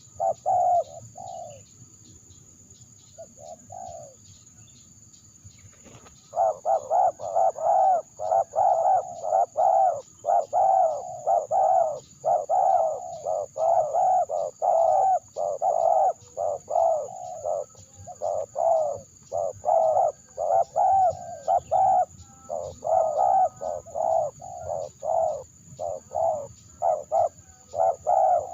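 Spotted dove (terkukur) cooing: a few coos, a pause of several seconds with one short call, then rapid repeated cooing from about six seconds in.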